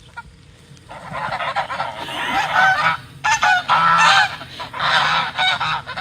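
Many birds calling at once in a loud, overlapping clamour that starts about a second in.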